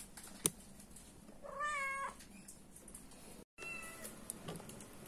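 A domestic cat gives one drawn-out meow about a second and a half in, preceded by a single sharp click. A second, shorter high cry follows just after a brief cut.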